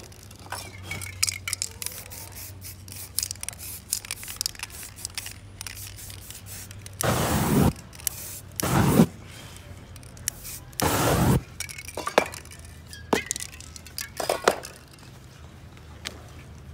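Aerosol spray paint can sprayed in three short bursts of hiss, each about half a second long, a second or two apart. Light clicks and clinks of cans and tools being handled fall between them.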